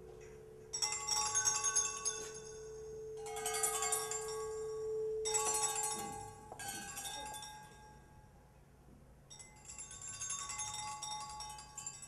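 Improvised electroacoustic music: shimmering clusters of high, bell-like chiming tones come in four waves, over a steady held tone that drops out about halfway through.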